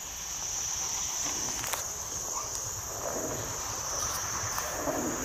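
Steady, high-pitched chorus of insects, such as crickets or cicadas, droning without a break.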